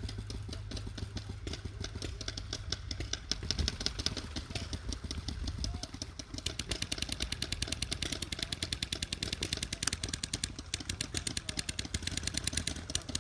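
Paintball markers firing in rapid strings of sharp pops, one shot after another in quick succession, the fire getting heavier about halfway through.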